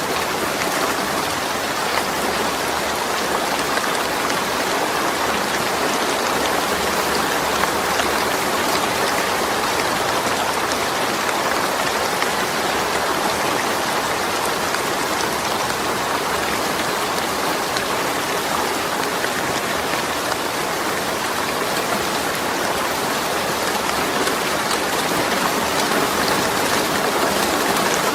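Steady rainfall, a dense even hiss of drops falling on a surface, with fine individual drop ticks.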